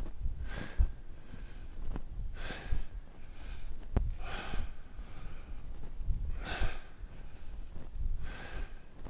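A man's breathing as he does bodyweight air squats, one noisy breath roughly every two seconds in time with the reps.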